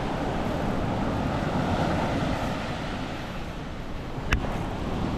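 Wind on the microphone over ocean surf, with one sharp click about four seconds in.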